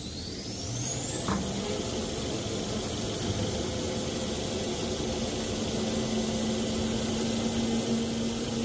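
XY-TQ-B toilet paper and kitchen towel making machine running up to speed: a high whine rises over the first two seconds and then holds steady over a steady mechanical hum. There is a single knock about a second in.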